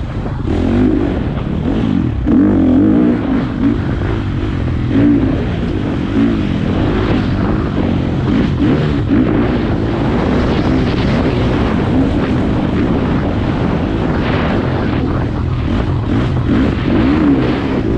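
Four-stroke single-cylinder dirt bike engine being ridden, revving up and easing off again and again as the rider works the throttle and gears.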